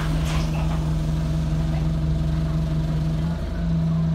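Alexander Dennis Enviro200 single-deck bus idling, heard from inside the saloon as a steady engine hum that dips briefly about three and a half seconds in.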